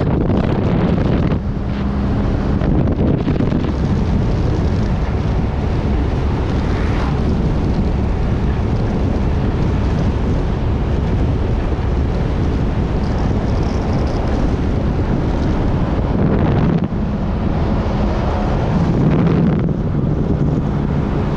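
Wind rushing over the microphone at an open window of a vehicle driving at highway speed, with steady road and engine noise underneath.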